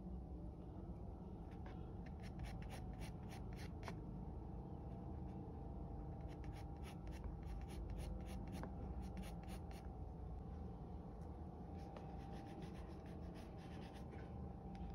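Graphite pencil scratching on drawing paper in three runs of quick short strokes with pauses between, over a low steady room hum.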